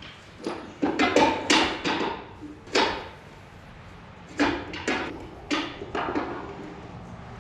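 Sharp metallic knocks and clanks of tractor three-point hitch parts being worked into place, as a quick hitch on a caster dolly is fitted to the lift arms. The clanks come in clusters: several about a second in, one near three seconds, and more from about four and a half to six seconds.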